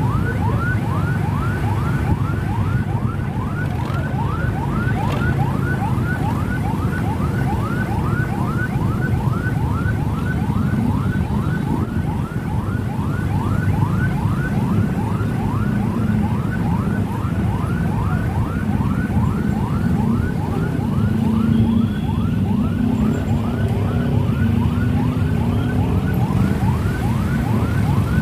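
Electronic siren in a fast yelp pattern, rising sweeps repeating about three times a second without a break, over the steady running of many motorbike engines.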